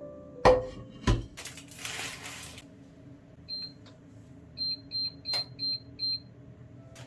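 Two sharp knocks and a brief hiss, then high electronic beeps from buttons on a digital panel being pressed: one beep, then five in quick succession, about three a second.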